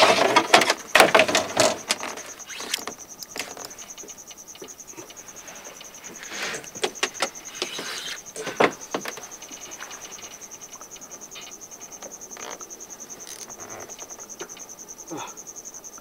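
An insect's steady, high, rapidly pulsing trill, with a run of loud clicks and knocks in the first two seconds and more around six to nine seconds in.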